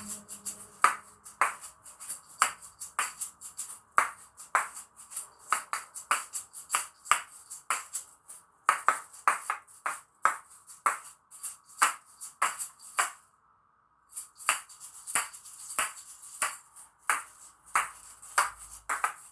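A pair of small plastic Patica Neo asalato (47 mm balls) played in a fast rhythm: sharp clacks of the two balls striking each other over the rattle of their fill. The playing breaks off for about half a second a little after the middle, then carries on.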